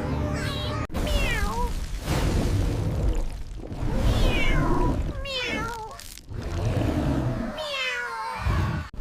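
Cartoon cat meowing again and again, each meow sliding down in pitch, over a low rumble.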